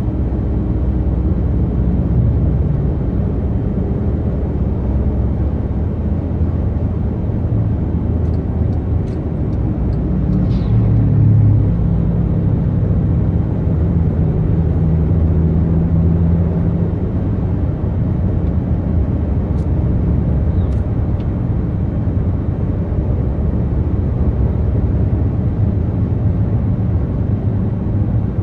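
A car being driven, with a steady low engine and road rumble that swells briefly about eleven seconds in. A few faint clicks sit on top.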